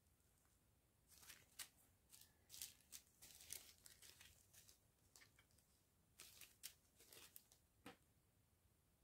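Faint crinkling and rustling of small plastic bags of diamond-painting resin drills being handled, in quick crackles in two spells, from about a second in and again from about six to eight seconds.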